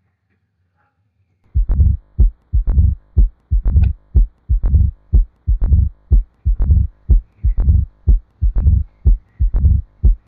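Recorded heart sounds of mitral stenosis: a steady run of low lub-dub beats, about two a second, with a loud first heart sound (S1) followed by S2. The beats begin about a second and a half in, after a short silence.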